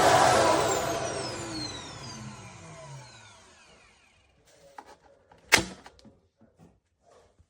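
A Shark cordless vacuum's motor switched off, its whine falling in pitch and fading as it spins down over about four seconds. Then light plastic clicks and handling knocks, with one sharp click about five and a half seconds in.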